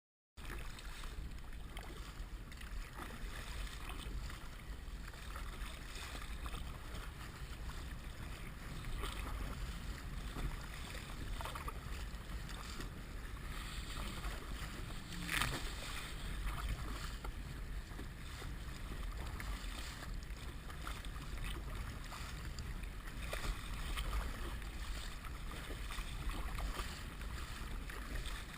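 Low wind rumble and the wash and splash of water around a paddled kayak, picked up by a head-mounted GoPro HD Hero2 in its sealed housing, with small knocks throughout and one sharper hit about halfway through.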